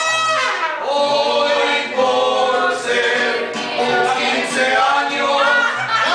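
Mariachi band playing, with trumpets and singing voices.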